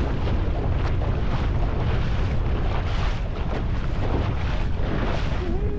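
Aluminium tinny running under outboard power across choppy water, with strong wind buffeting the microphone and water rushing past the hull.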